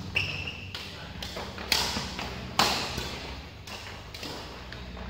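Badminton rackets hitting a shuttlecock in a doubles rally, with two sharp hits about a second apart and lighter taps and footfalls on the court, echoing in a large hall. A short shoe squeak comes near the start.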